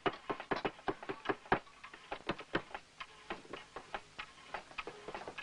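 Sharp, irregular hammer taps, about three to five a second, from background hammering at a smithy.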